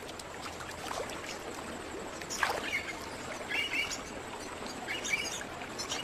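Birds chirping a few times, briefly, over a steady hiss of flowing water.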